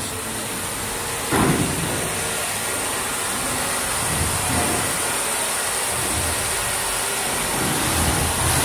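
Steady machinery noise of a factory workshop, with a faint high whine running through it and a brief louder bump about a second and a half in.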